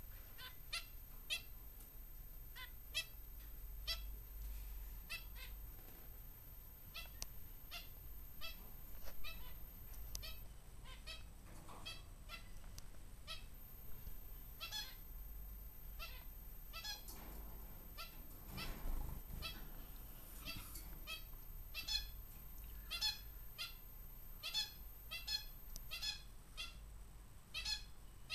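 Small aviary finches calling: many short, high chirps, several a second at an uneven rate.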